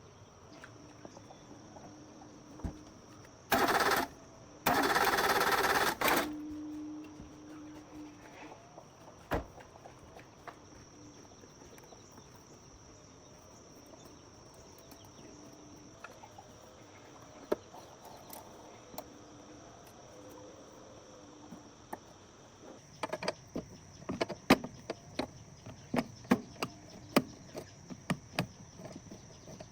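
Insects trill steadily in the background. Near the start there are two loud bursts of hissing noise, each lasting a second or two. In the second half comes a quick run of metallic clanks and knocks from work going on.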